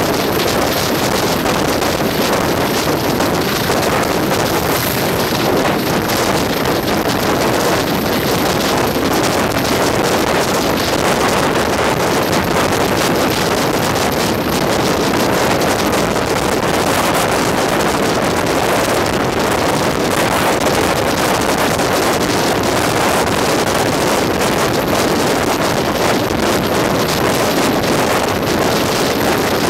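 Steady rush of wind over a microphone held out of the window of a moving passenger train, mixed with the running noise of the train. The pair of English Electric Class 20 diesel locomotives at the head of the train is working under power.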